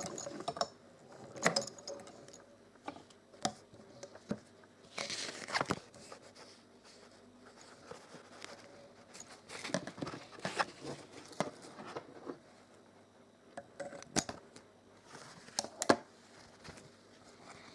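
Cloth rustling with scattered light clicks and knocks as dark test fabric is handled and drawn out from under the presser foot of a vintage Frister & Rossmann sewing machine. A longer rustle comes about five seconds in.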